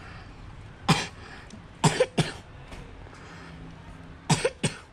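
A person coughing: short, sharp coughs, a single one about a second in, then a quick pair around two seconds and another pair near the end.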